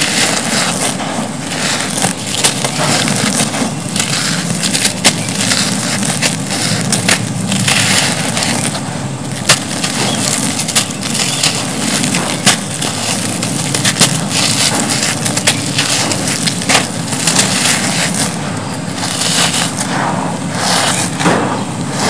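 Dry, gritty cement lumps being squeezed and crumbled by hand, a continuous crunching studded with sharp crackles as grit and dust pour onto a pile of rubble.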